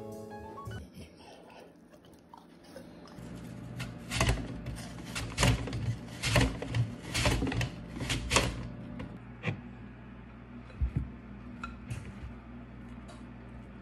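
Apple being sliced on a wooden mandoline slicer: a run of crisp strokes, about three a second, lasting about four seconds, then a few lighter knocks, over a low steady hum.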